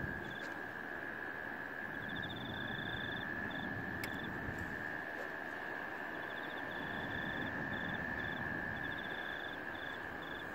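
Insects calling from the grass: a steady high drone, with a higher pulsed trill coming in runs and stopping again, over a low steady rush of noise.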